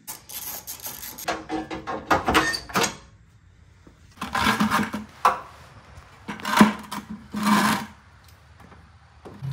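Metal parts clattering and rattling as the air-conditioning condenser is worked loose and lifted out of the front of a 2000 Jeep Grand Cherokee WJ, then three short bursts of scraping and handling noise.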